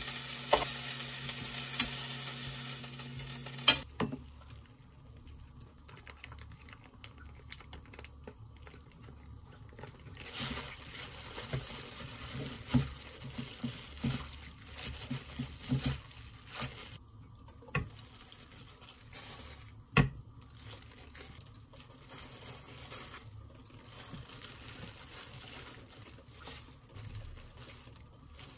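Pork belly sizzling in a frying pan with a few clicks of tongs, cutting off suddenly after about four seconds. Then quieter wet squishing and rustling as noodles are tossed in sauce by a gloved hand, with occasional sharp clicks of food and utensils set on the board and pan, one loud click about twenty seconds in.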